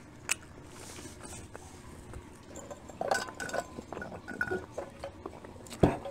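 Table sounds during a meal: small clicks and clinks of dishes and utensils, with a stretch of drinking from a glass mason-jar tumbler about three seconds in. A single sharp knock near the end is the loudest sound.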